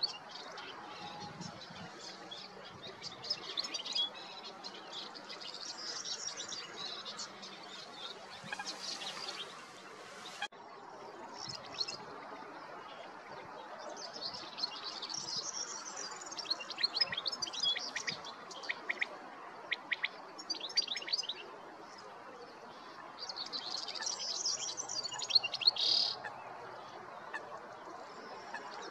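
European goldfinch singing its spring song: several bouts of rapid, high twittering notes and trills, each a few seconds long, over a steady background hiss.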